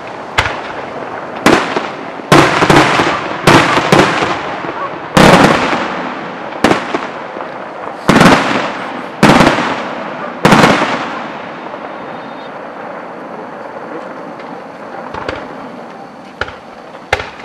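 Aerial firework shells bursting overhead: about a dozen sharp bangs, each trailing off in a long echo, over the first eleven seconds, then a lull with a few faint pops near the end.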